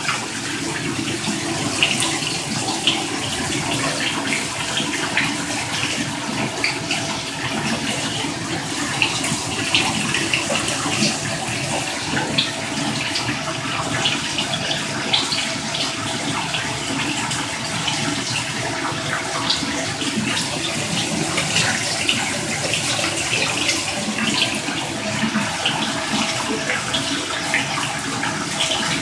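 Water spraying steadily from a DreamSpa LED shower head, with small irregular splashes.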